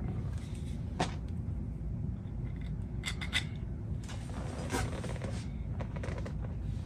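A few light clicks and short scrapes from handling and fitting wooden parts, over a steady low hum.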